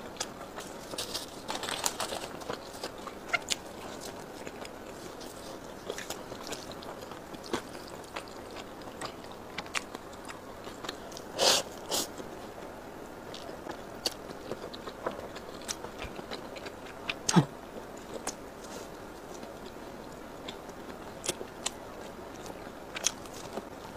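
Close-up chewing and biting of pizza and spicy fire-chicken instant noodles, with wet mouth clicks and crackles throughout. Two louder noisy bursts about halfway through as noodles are sucked in, and a sharp loud click a few seconds later.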